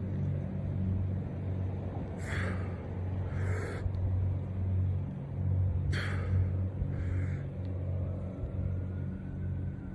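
Heavy breathing of a man doing push-ups, a pair of sharp breaths about every four seconds, over a steady low rumble.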